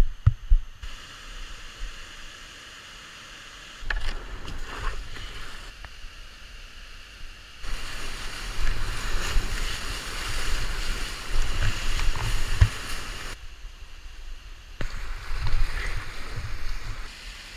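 River rapids rushing, with wind rumbling on the microphone. The loudness jumps up and down abruptly several times.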